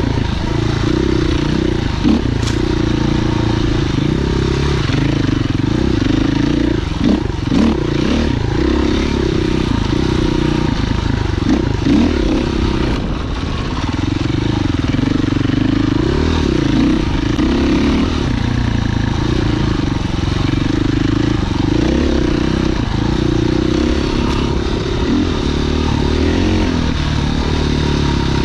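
Husqvarna FE 501's single-cylinder four-stroke engine running under way as the bike is ridden, its revs rising and falling with the throttle. A few sharp knocks and clatters stand out, mostly about a quarter of the way in and near the middle.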